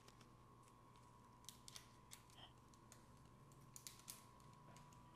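Near silence: quiet kitchen room tone with a faint steady whine and a few faint clicks and crinkles of hands handling a dough wrapper and plastic bag.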